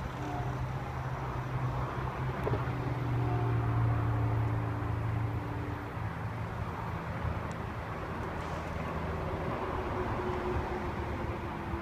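Steady low engine hum, loudest about three to five seconds in and fading after six, over outdoor traffic noise.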